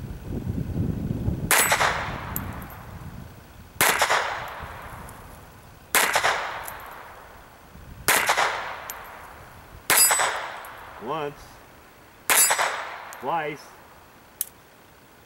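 Six shots from an Astra Cub .22 Short pocket pistol, about two seconds apart, each a sharp crack with a short fading tail. The last two are hits on a steel target plate.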